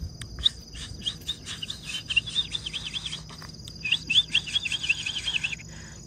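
Steady high-pitched insect drone with a bird chirping over it in two quick runs of short rising notes, several a second, the first run lasting about three seconds and the second starting about four seconds in.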